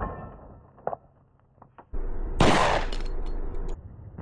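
SIG Sauer P220 Legion 10mm pistol firing at steel targets. A struck steel plate's ring dies away at the start, and about two and a half seconds in comes another sharp, loud shot.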